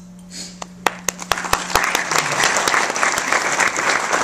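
Audience applauding: a few separate claps about a second in, quickly building into full, steady applause.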